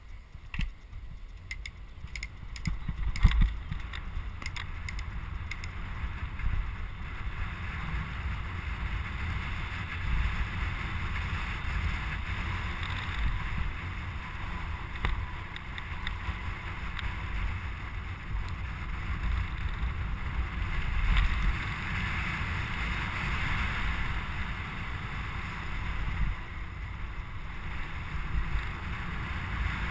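Wind buffeting the microphone and tyres rolling on asphalt as a mountain bike coasts downhill, the rushing noise growing as it gathers speed. A run of clicks in the first few seconds and a sharp knock about three seconds in.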